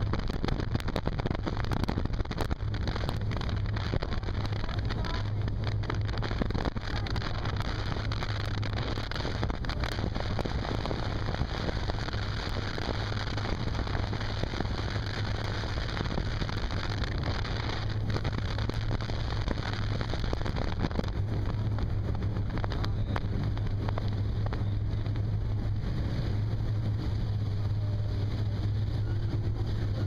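Motorboat running steadily at speed across a river: a constant low engine drone under an even rush of wind and water.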